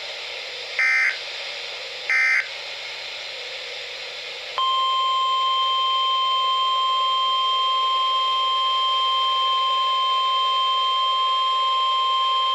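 Emergency weather-alert signal over radio hiss. Two short bursts of warbling digital data tones (the SAME header coding the alert) come in the first two and a half seconds. From a little past four seconds in, the long, steady single-pitched warning alarm tone near 1 kHz sounds, which announces a severe thunderstorm warning.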